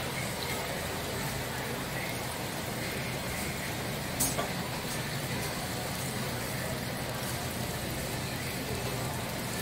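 Steady background hum and hiss of a supermarket seafood department, with a faint murmur of voices and one short clack about four seconds in.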